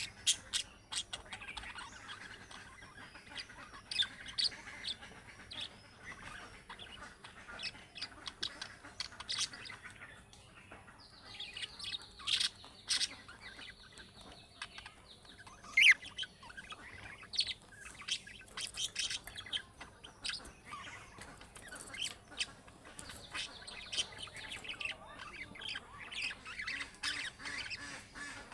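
Budgerigars chirping and warbling in a rapid, uneven stream of short sharp notes, with a denser warbling stretch about halfway through and one loud chirp soon after.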